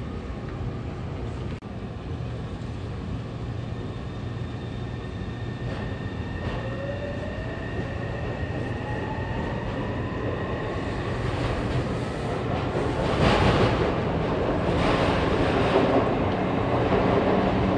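Taipei Metro C301 train heard from inside the car as it pulls away from a station: a motor whine rises steadily in pitch as the train accelerates, over steady running noise. The running noise grows louder about two-thirds of the way through.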